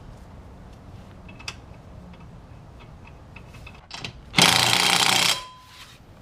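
Impact wrench hammering in a single burst of about a second, tightening a nut, after a few light clicks of handling.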